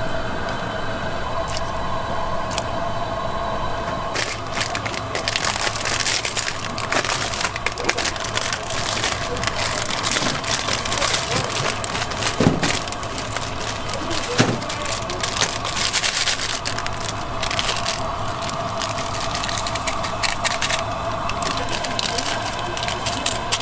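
Plastic instant-ramen packets being handled and torn open, with dense sharp crinkling from about four seconds in until near the end. A steady kitchen hum runs underneath.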